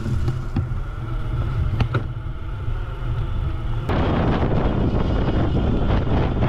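Riding an e-bike over a dirt trail: steady low rumble of the ride with wind buffeting the handlebar camera's microphone and a couple of small rattling clicks. About two-thirds of the way through, the sound switches abruptly to a louder, even rush of wind noise.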